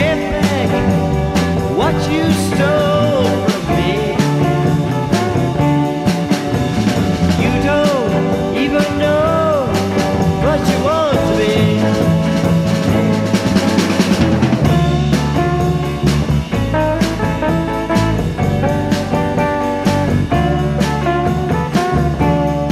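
Instrumental passage of a 1960s beat-group rock record: a band with drums, and a lead line whose notes bend and waver in pitch over a steady chordal backing.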